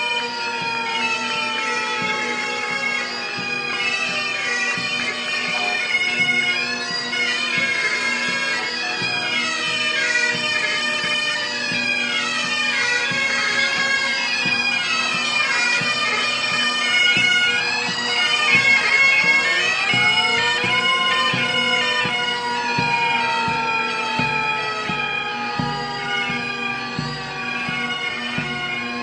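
Marching pipe band playing: Highland bagpipes sounding their steady drone and melody, with a bass drum beating under them, plainer in the last few seconds. A slowly falling whine runs beneath the pipes and swoops up and falls again about twenty seconds in.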